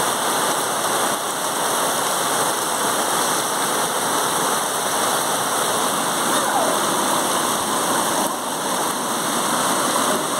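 Floodwater rushing in a torrent along a street under heavy rain: a steady, dense rush of water.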